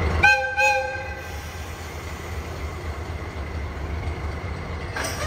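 Diesel shunting locomotive sounding two short horn blasts, the signal before it starts to move, over the low, steady running of its idling engine. A short clank follows near the end.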